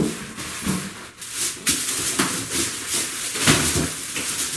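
Styrofoam packing blocks rubbing and squeaking in repeated strokes as they are pulled off a stainless steel trash can.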